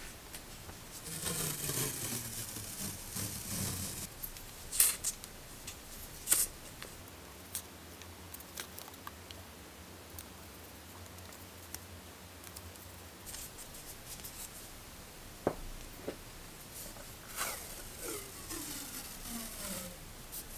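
Paper washi tape being peeled off its roll, a crackling strip of sound that falls in pitch, about a second in and again near the end. In between, a few sharp taps from handling the tape rolls.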